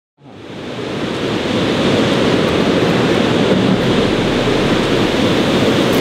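Steady roar of a waterfall, water rushing and pouring, fading in over the first second or two.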